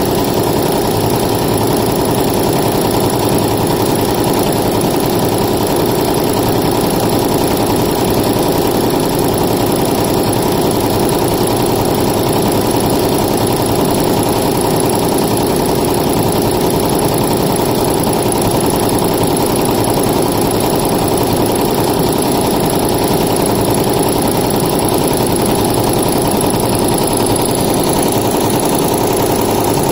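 Multi-needle embroidery machine running steadily, its needle stitching fast with a constant rapid mechanical chatter.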